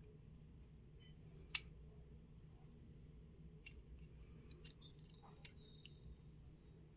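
Near silence with a few faint light clicks: one sharper click about a second and a half in, then a cluster of clicks and taps a little later, from the small parts of a taken-apart Nokia N70 phone being handled.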